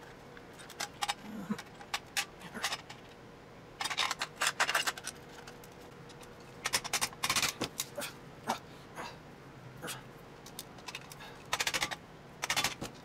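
Hammer blows on a screwdriver driven into the seam of a Panasonic Ni-MH charger's plastic case, prying open a sealed case that resists. They come as three bursts of quick, sharp knocks about four, seven and twelve seconds in, with smaller clicks of metal on plastic between.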